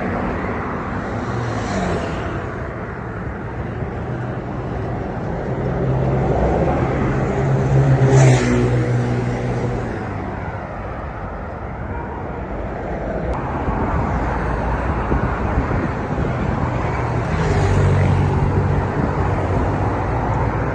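Road traffic: vehicles passing with a low engine hum, two of them louder as they go by, about eight seconds in and again a few seconds before the end.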